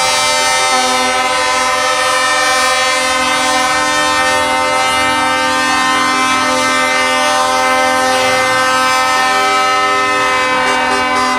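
Trucks' multi-tone air horns sounding in one long, unbroken chord, with a slight change in the lower notes near the end.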